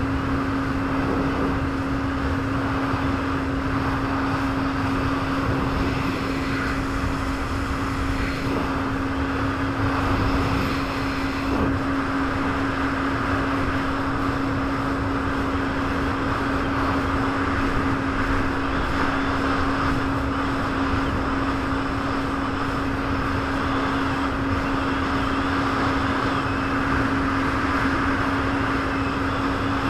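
Jet ski engine running at a steady pace, a constant drone with an even rushing noise over it.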